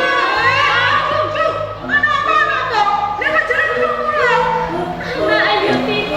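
Music with singing voices that slide up and down in pitch over held low instrumental notes.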